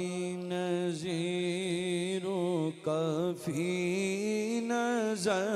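A solo voice singing a devotional naat, unaccompanied, in slow, drawn-out phrases: long held notes with ornamented turns and brief breaths between them.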